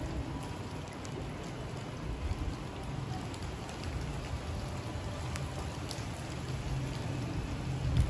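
Steady rain falling on wet pavement: an even hiss with a few scattered drop ticks.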